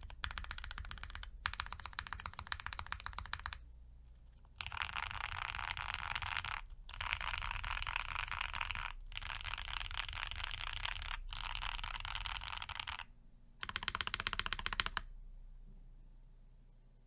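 Piggy 60 mechanical keyboard with lubed and filmed Gateron FC linear switches on a polycarbonate plate, with CRP APL keycaps, typed on fast in bursts of a couple of seconds with short pauses. The typing stops about fifteen seconds in.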